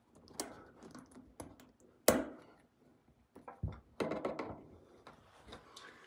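Scattered clicks and knocks as the retaining pin is pushed down into a Moen shower valve's brass body to lock the new cartridge in place, the loudest knock about two seconds in.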